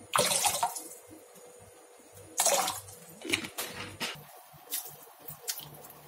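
Water splashing in a plastic basin in a sink: vinegar is poured in from a plastic bottle, then bunches of parsley are pushed under and swished by hand. Two loud splashes, one right at the start and one about two and a half seconds in, then lighter splashes.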